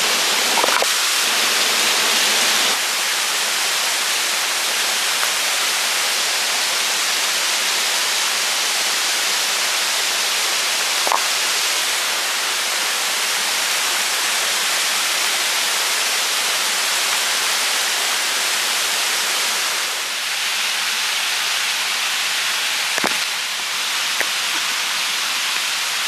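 Small cascade in a rocky mountain stream, water rushing steadily, with a couple of brief knocks.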